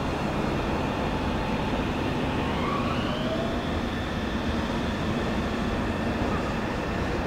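Electric train running, a steady rumble with a thin motor whine whose pitch rises about two and a half seconds in and then holds, as the train gathers speed.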